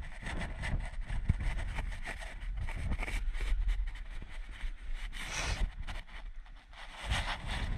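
Irregular scuffs, scrapes and knocks of hands, boots and clothing against granite boulders and loose rock while scrambling, close to a body-worn camera. A low rumble of wind on the microphone runs underneath, with a longer rushing swell a little past five seconds and again near the end.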